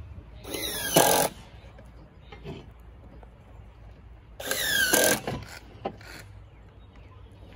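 Cordless power tool fastening a wooden edge board, run twice: each is a short motor whine that drops in pitch and ends in a sharp crack.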